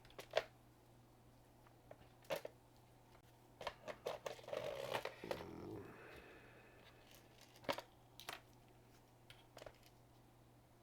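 Scattered light clicks and taps of small items being handled on a workbench, with a short run of clicks and a rustle about four to five seconds in, over a low steady hum.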